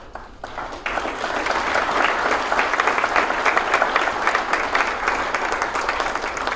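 Audience applauding, many hands clapping at once, building up over the first second and tapering off near the end.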